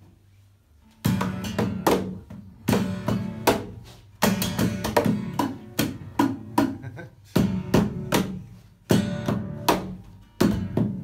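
Acoustic guitar played by two people at once: chords strummed and the guitar's body slapped by hand like a drum, giving a heavy, rhythmic groove. It starts about a second in, after a short quiet moment.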